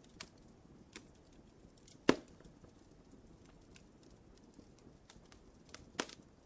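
Wood fire crackling in a fireplace: a low hiss with scattered sharp pops, the loudest about two seconds in and another near the end.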